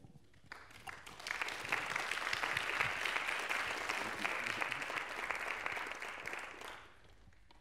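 Audience applauding in a hall, a dense patter of many hands that builds about a second in and dies away shortly before the end.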